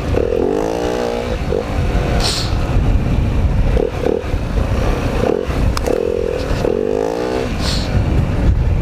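Dirt bike engine running under load, revving up and easing back with the throttle over a steady low rumble, with two short high hissing sounds, about two seconds in and near the end.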